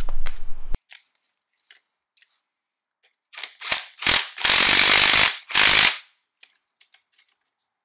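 Cordless impact wrench hammering on the threaded rod of a coil spring compressor, tightening it to compress a strut's coil spring. It runs in a few short bursts, then one long run of about a second, then a last short burst.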